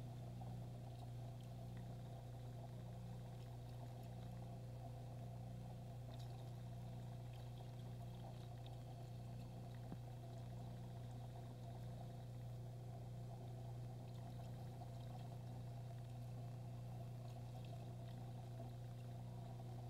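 Aquarium filter running: a steady low hum with faint trickling water.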